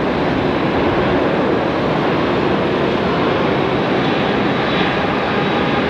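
Jet airliner engines running, a steady loud rushing noise with a faint whine.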